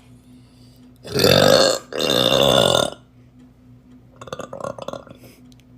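A person burping loudly twice in quick succession, each burp about a second long and deep-pitched.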